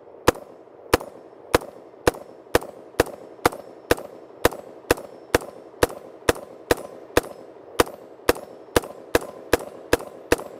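Daewoo DR200, the semi-automatic post-ban K2 rifle, firing a steady string of about twenty single shots, roughly two a second.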